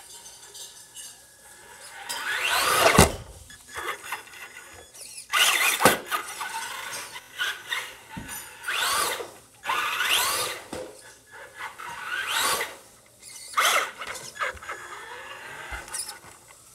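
Radio-controlled truck driven in short bursts across a wooden floor: its motor whines up in pitch with each burst of throttle, six or seven times, the loudest about three seconds in.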